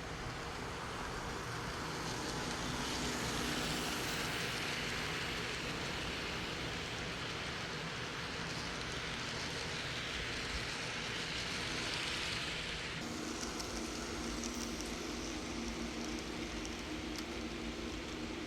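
Model diesel locomotive running along layout track with a steady hiss of wheels and motor. The hiss drops off about two-thirds of the way through, and a low steady hum comes in.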